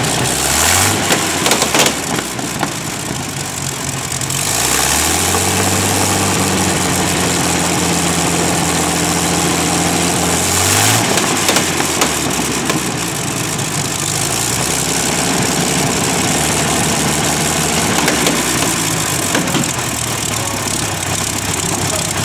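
Rolls-Royce Merlin 27-litre V12 aero engine turning its propeller on a test stand: revved briefly about a second in, then run up again and held at higher revs for about six seconds before dropping back to idle.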